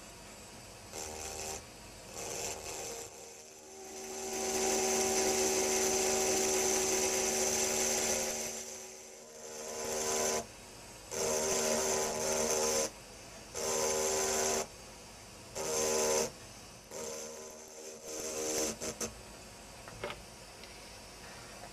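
Handheld engraving drill with a fine burr grinding into an optical crystal glass bottle: a whine with a high hiss that comes in bursts, two short ones at first, then one long run of about six seconds and several shorter ones.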